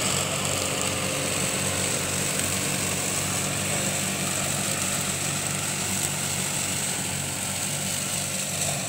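Tractor diesel engine running steadily while it pulls and drives a Happy Seeder sowing wheat into rice stubble.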